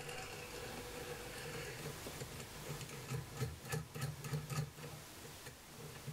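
Faint light metallic clicks and taps as a threaded steel rod with small nuts is handled and fed through a carbon-fibre frame, bunched about halfway through, over a low steady hum.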